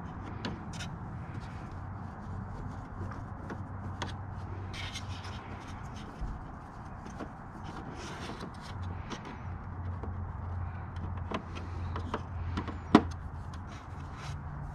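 Hand screwdriver driving a screw into a motorcycle's black plastic seat-back panel, with scattered light clicks and plastic knocks as the panel is handled. One sharp click near the end is the loudest.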